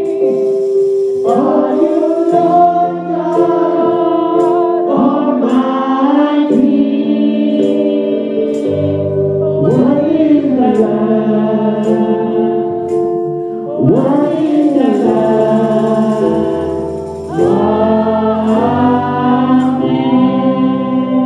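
Gospel worship song: a small group of voices singing together over held keyboard chords, with a deeper bass line joining about nine seconds in.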